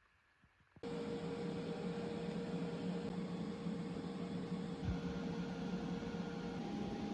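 A machine switches on about a second in and runs with a steady hiss and hum; its tone shifts slightly near the end.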